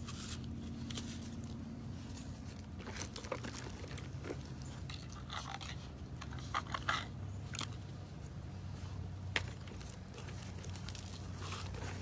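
Labrador puppy chewing and mouthing: scattered small crunches, scrapes and clicks over a steady low hum.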